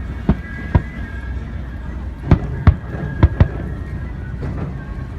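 Fireworks going off: about six sharp bangs at uneven intervals, the loudest clustered a little past the middle, over a steady low rumble with music faintly underneath.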